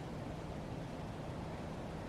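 Steady low rumble with a soft hiss over it, unchanging throughout; no crossing bell or passing train is heard.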